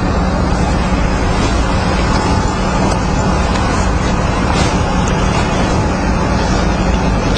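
Steady rushing background noise with a constant low hum and a few faint clicks.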